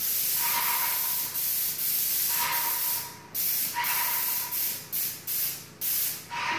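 Airless paint spray gun hissing in bursts as the trigger is pulled and released while spraying a door: two long passes, then several short bursts in the second half.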